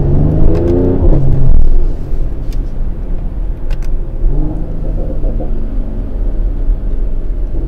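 Mercedes-AMG GLE 53 Coupe's turbocharged inline-six running under way, heard inside the cabin. Its pitch shifts with the throttle: loudest in the first two seconds, easing off, then picking up again about four seconds in.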